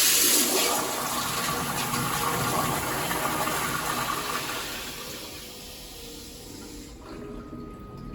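Toilet flushing: a loud rush of water, strongest at the start, fading over about five seconds to a quieter run of water.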